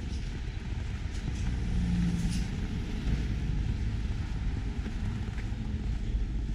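Low, steady rumble of car traffic on a snowy town street.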